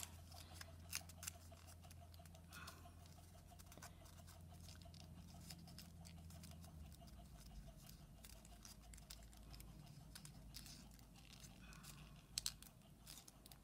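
Faint crinkling and clicking of origami paper being creased and folded by hand, with a couple of slightly louder ticks, over a low steady hum.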